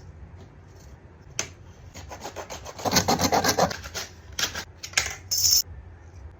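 Hand work on homemade craft materials: a quick run of rasping, scraping strokes for about two seconds, with a few sharp clicks and a short hiss near the end.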